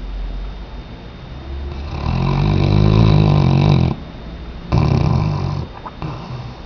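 Weimaraner dog snoring: one long snore about two seconds in and a shorter one about a second later, over a low rumble.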